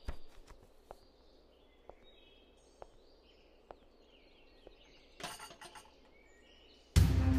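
Slow footsteps, a soft click about once a second, over faint birdsong. A short burst of noise comes a little after five seconds in, and background music starts loudly near the end.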